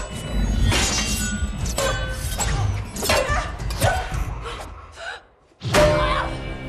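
Movie fight soundtrack: a run of hard blows and crashes, about one a second, over background music. The sound drops out briefly about five seconds in, then a loud hit comes in.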